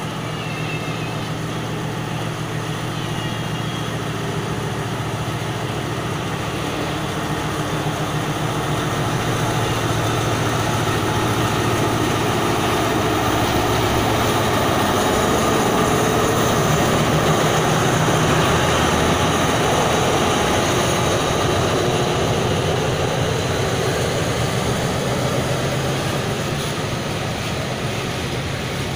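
State Railway of Thailand Alsthom diesel-electric locomotive running as it draws its passenger train past at close range. A steady engine hum grows louder, is loudest a little past halfway as the locomotive goes by, then eases slightly as the coaches roll past.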